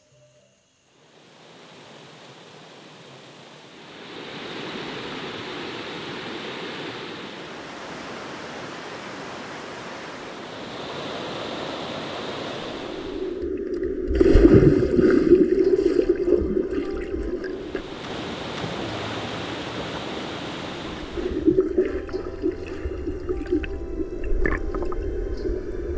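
Running stream water, a steady rush. About halfway through, and again near the end, it turns louder, deeper and muffled, with churning heard from under the water as a dog swims.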